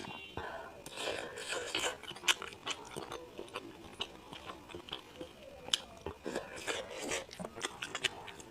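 A person chewing food close to the microphone, with many short, irregular wet mouth clicks.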